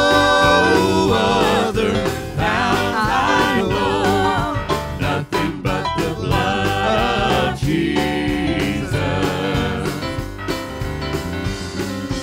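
Live church worship band and singers performing a gospel hymn: voices holding and bending long notes over keyboard and drums, with a flurry of drum hits about five seconds in.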